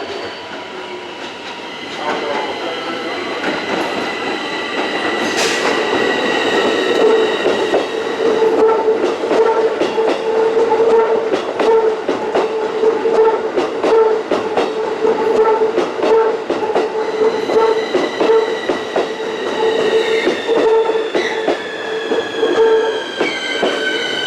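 An electric commuter train running, its wheels clicking over rail joints, with a regularly pulsing tone heard through most of the sound. Whining tones fall in pitch near the end.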